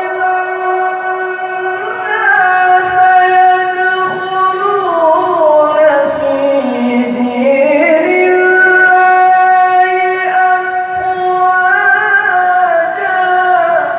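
A qari's voice reciting the Quran in the melodic tilawah style: one long, ornamented phrase on a single breath, its pitch sinking lower about halfway through and climbing back before it fades out at the end.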